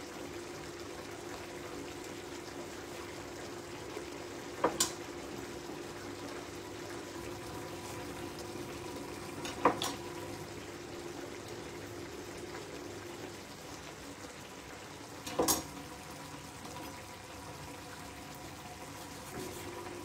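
Pan of tomatoes and broth simmering on the hob, a steady bubbling hiss under a faint hum, with a chef's knife knocking sharply on a wooden cutting board three times, roughly five seconds apart, as raw beef is sliced.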